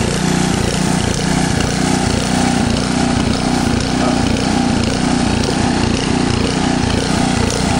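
A small gasoline engine running steadily at a constant speed.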